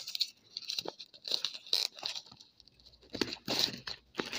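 Clear plastic shrink wrap being picked at and torn off a phone box, crinkling and crackling in short irregular spells, loudest a little after three seconds in.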